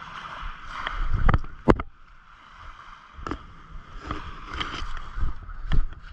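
Wind and water noise at the shore on a body-worn camera, broken by several sharp handling knocks. The loudest two come close together about a second and a half in.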